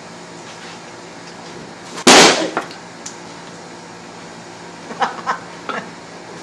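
A single loud, sharp burst of noise about two seconds in, dying away within half a second, then a few lighter knocks near the end.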